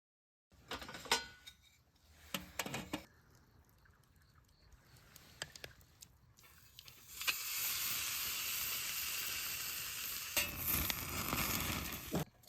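A few clicks and knocks of utensils, then food sizzling steadily in a hot pan from about seven seconds in, stopping just before the end.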